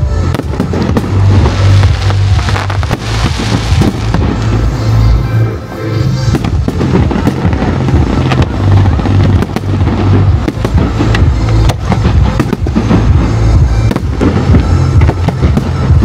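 Fireworks bursting in rapid succession, many sharp bangs and crackles, over loud music with a pulsing bass.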